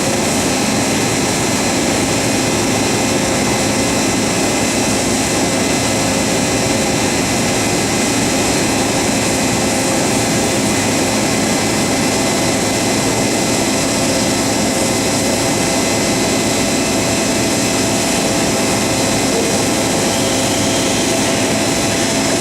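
LeBlond Makino MC1813 five-axis CNC horizontal machining center running under power: a steady, loud whir and rush with several constant whining tones over it, unchanging throughout.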